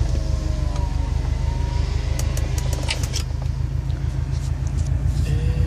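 Subaru WRX STI's turbocharged flat-four idling through a Perrin turbo-back exhaust, a steady, evenly pulsing low rumble heard from inside the cabin.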